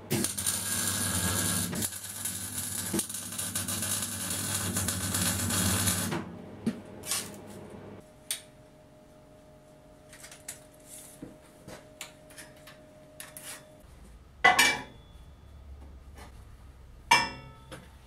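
Arc welding on a steel frame: the arc crackles and buzzes loudly for about six seconds, with a short break about two seconds in, then stops. Later, steel square tubing clanks twice, the second knock ringing briefly.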